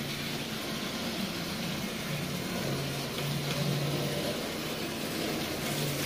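Marx Commodore Vanderbilt electric toy locomotive running on tinplate track: its motor hums and its wheels run on the rails, a steady low hum whose pitch shifts a little now and then.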